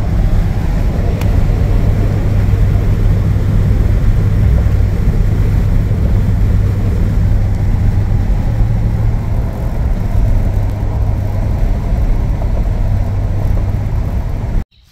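Vehicle driving on the road: steady engine and road noise with a strong low rumble, cutting off abruptly near the end.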